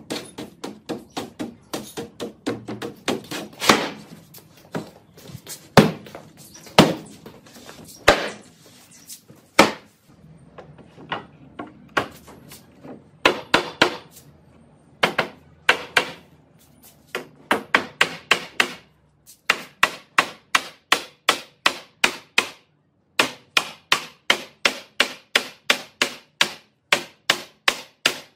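Hammer blows on the top rail of a wooden panel frame. They come irregularly at first with a short lull, then as a fast, even run of about four blows a second with a brief break.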